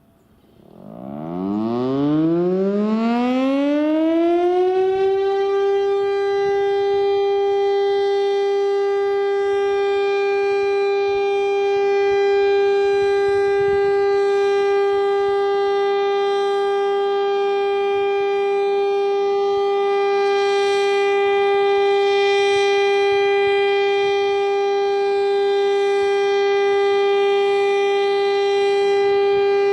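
Federal Signal STL-10 single-tone outdoor warning siren starting up: its pitch rises over about four seconds, then it holds one steady tone. This is its yearly tornado siren test activation.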